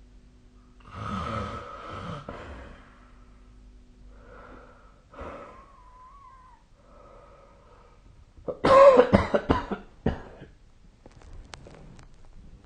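A sleeping person snoring: rough breaths a few seconds apart, a short whistling wheeze in the middle, and a louder sputtering burst near the end.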